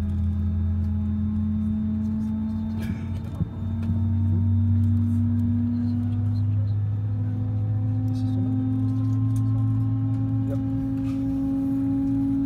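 Airbus A319's IAE V2500 turbofan spooling up during engine start, heard inside the cabin: a steady hum and whine that rises slowly in pitch and grows louder about four seconds in.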